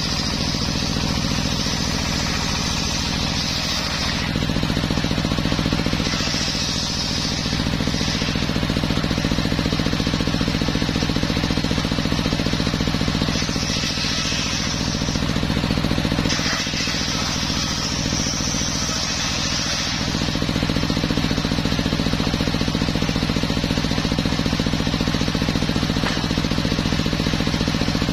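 Homemade circular sawmill running steadily with a constant low machine hum, while a higher cutting noise from the blade in teak wood comes and goes every few seconds.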